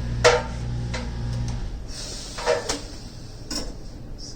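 A few sharp knocks and clunks of hardware being handled, the loudest about a quarter of a second in and two more near the end. A low steady hum runs underneath and stops about one and a half seconds in.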